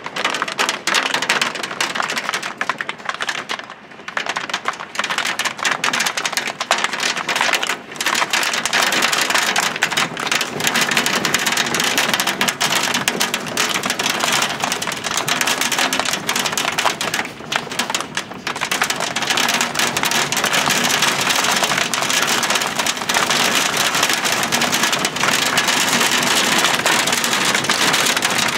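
Hail and rain pelting a window pane and the ground outside: a dense, steady patter of many small impacts, a little heavier in the last third.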